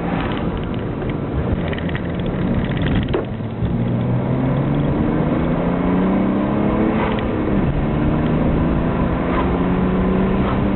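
Inside the cabin of a BMW E90 diesel with a straight-piped cat-back exhaust and no silencer, pulling under acceleration. The engine note climbs, drops at a gear change about seven and a half seconds in, then climbs again. There is a short knock about three seconds in.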